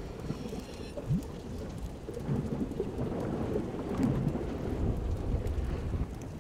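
Wood campfire burning with a dense run of small crackles and pops over a low rumble, a little louder in the middle, with a short rising squeak about a second in.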